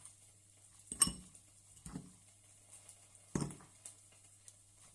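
Kitchen utensils knocking against cookware: three separate knocks about a second apart, the first with a short bright ring, and a few lighter taps after them.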